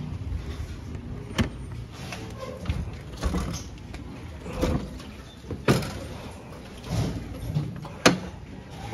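Vehicle on the move: a steady low road rumble, broken by several sharp knocks and clicks, the loudest near the end.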